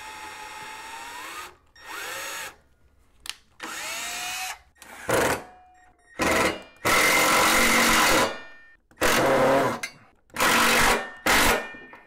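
Cordless drill run in short trigger bursts, first boring a pilot hole into the wooden desk underside, then driving a screw through a steel cable tray into the wood. It starts with a steady whine that rises in pitch, then comes in about eight separate bursts, the longest and loudest about seven seconds in.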